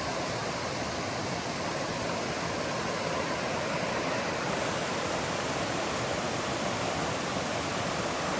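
Waterfall on a mountain stream, a steady rushing of falling water.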